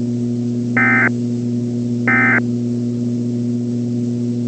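Two short bursts of weather-radio SAME digital data tones, about 1.3 s apart, each a fraction of a second long, over a steady low electrical hum. The short bursts, repeated, are the length of the end-of-message code that closes an alert broadcast.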